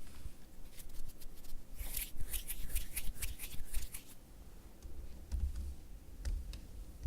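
Fingertips tapping on leather: a quick flurry of light, crisp taps in the middle, then sparser taps with some duller low thumps.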